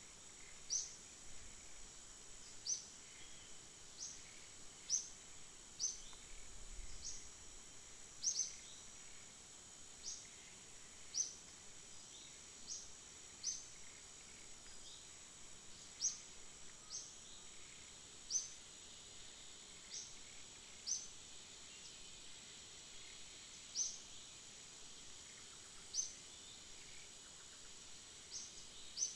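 A bird gives a short, high chirp over and over, about once every one to two seconds, over a steady high-pitched insect drone.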